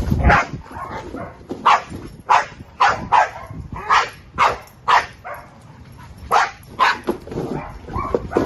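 Dog barking repeatedly in short, sharp barks about every half second, with a brief pause midway: a guarding dog warning off a man in a bite jacket who approaches the box it is holding.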